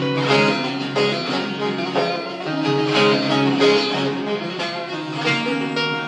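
Instrumental break in a song's backing track, with no singing: a plucked-string melody over a steady accompaniment.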